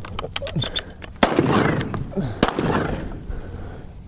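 Two shotgun shots about a second and a quarter apart, each followed by a lingering echo, with a few lighter clicks before the first.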